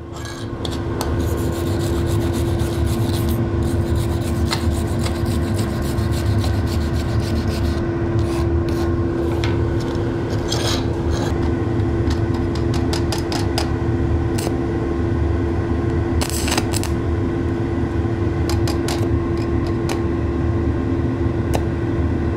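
Aluminium stick electrode scratched and tapped against a thin aluminium plate to strike an arc, with irregular short crackles as the arc catches and dies, over a steady hum. The arc is hard to strike with this electrode.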